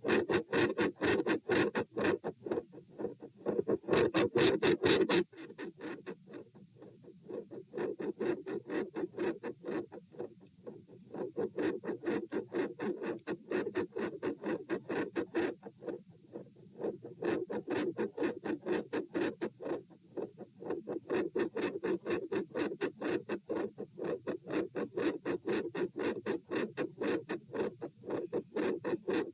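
Heartbeat picked up through a stethoscope on the chest, a rapid, regular train of beats with a scratchy rubbing noise over them. It is louder and harsher for the first five seconds or so, then softer.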